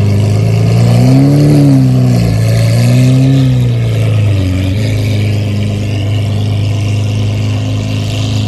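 Lamborghini Aventador's V12 engine running at low revs as the car rolls slowly, with two brief blips of the throttle about one and three seconds in, each rising and falling in pitch.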